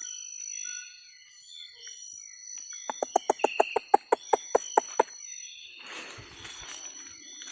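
Rainforest insects keep up a steady high buzzing with repeating chirps. About three seconds in comes a loud, fast run of a dozen or so sharp, hollow knocks lasting about two seconds, followed by rustling.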